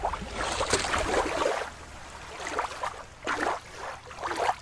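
Shallow water lapping and splashing at the shoreline. About a second and a half in, this gives way to a quieter water sound with a few short gurgling splashes.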